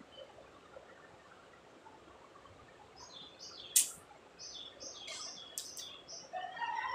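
Small bird chirping: a run of short, high notes repeating about three times a second, starting about three seconds in. There is one sharp click among them, the loudest single sound.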